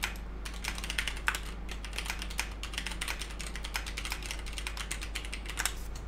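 Fast typing on an Akko 3108 V2 Silent mechanical keyboard with Cherry MX Brown switches, PBT keycaps, a steel plate and lubed stabilisers, with foam stuffed inside the case: a quick run of keystrokes, dampened rather than clacky. The typing stops shortly before the end.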